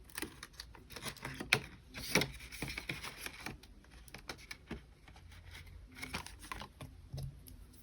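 Paper bills and cash envelopes being handled: faint rustling and light taps, with sharper crackles about one and a half to two seconds in.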